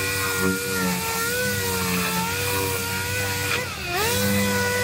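Air-powered orbital sander whining steadily as it sands the bare steel of a repaired quarter panel. Its pitch dips sharply near the end as it bogs down, then recovers.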